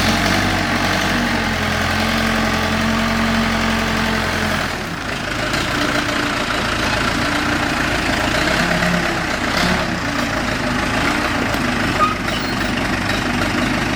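Case 480E backhoe loader's four-cylinder diesel engine running steadily. About five seconds in the level dips briefly and the engine note changes, running less evenly for the rest.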